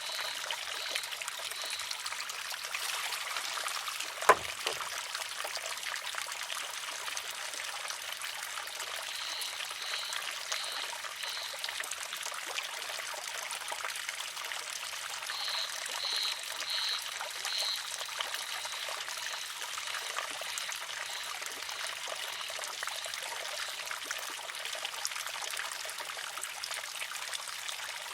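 Water trickling steadily into a wooden shishi-odoshi, which tips over about four seconds in and strikes its rock with one sharp clack. Runs of short, high, evenly spaced chirps come and go over the trickle a few times.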